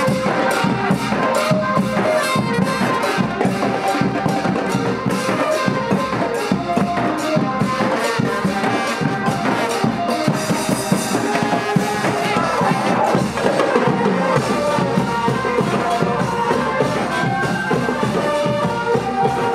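Thai street brass band (trae wong) playing a procession tune: trumpet and other brass over a steady beat of bass drum and snare drum.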